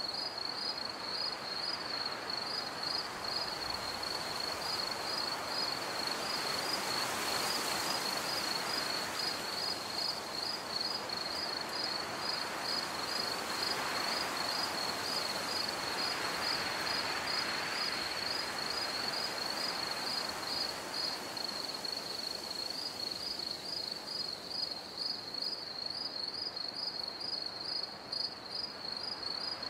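Crickets chirping: a high chirp repeated evenly and without a break, over a soft hiss that swells and fades a few times.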